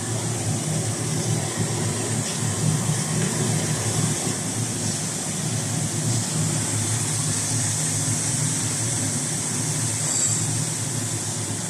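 Ultra-high-frequency induction heating machine running steadily under load, a constant low hum with a faint high hiss over it and no hammer blows.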